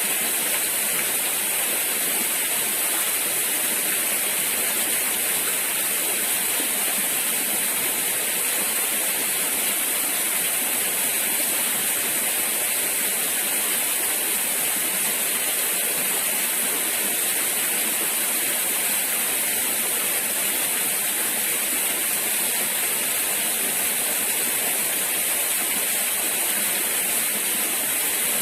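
Flowing river water rushing steadily, an even hiss with no change in level.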